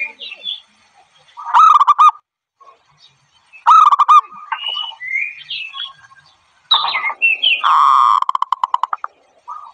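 Zebra doves calling: three loud bouts of rapid staccato cooing, the last and longest ending in a fast run of clipped notes. Smaller birds chirp faintly between the bouts.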